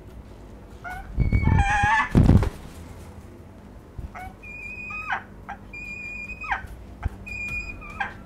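Falcon calling repeatedly: a series of drawn-out high calls, each holding a steady note and dropping in pitch at the end. Two loud low bumps come about one and two seconds in.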